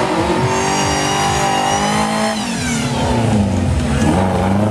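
Off-road jeep's engine revving hard, its pitch held high, dropping a little past halfway, then climbing again near the end.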